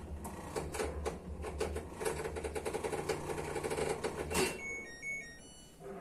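LG top-load washing machine trying to start its spin cycle: a steady low hum with fast, even rattling clicks for about four seconds, then it stops and the control panel gives a few short electronic beeps. The machine cannot start because the mains supply reaches only about 85 V instead of the normal 110 V.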